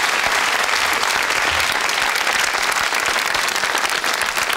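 Studio audience applauding, steady, dense clapping throughout.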